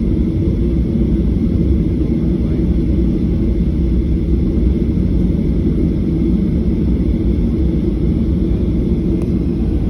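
Steady low rumble heard inside the cabin of a WestJet Boeing 737 taxiing on the ground: the jet engines and the rolling of the airliner, with a faint hiss above it.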